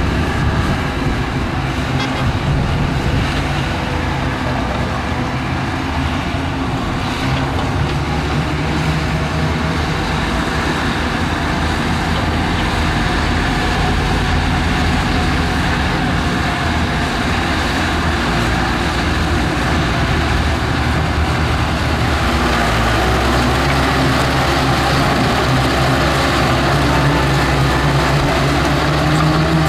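Diesel engine of heavy earthmoving machinery, a bulldozer or excavator, running steadily under work. About two-thirds of the way in its note shifts and gets a little louder.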